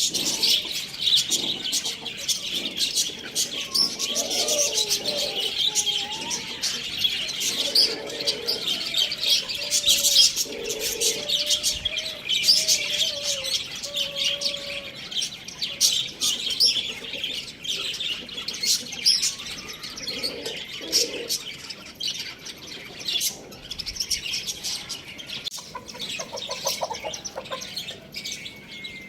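A group of small pet birds chirping and chattering nonstop, with a few lower calls mixed in.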